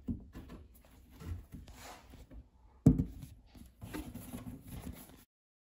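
Handling noise as a thin back panel of a flat-pack TV stand is worked into its grooves: scattered light knocks and rubbing, with one sharp knock a little before three seconds in, the loudest sound. The sound cuts out suddenly near the end.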